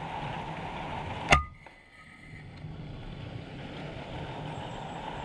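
A single shot from a PCP air rifle about a second in: one sharp crack with a brief ringing tone after it, over a steady background hiss.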